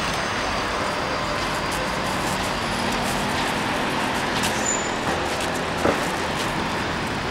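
Steady street traffic noise, with a single short knock about six seconds in.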